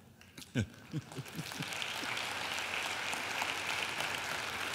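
A few short laughs, then a congregation's applause builds about a second and a half in and continues steadily.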